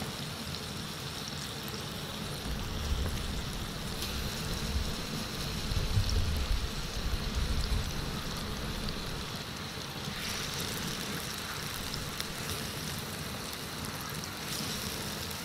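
Fish pieces sizzling steadily in hot oil on a large steel tawa, the sizzle stepping up a few times as fresh pieces are laid into the oil. A low rumble runs through the middle, loudest about six seconds in.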